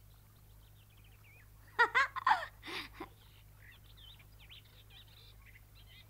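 Faint bird chirping in the background, with a brief vocal sound of three or four quick syllables about two seconds in.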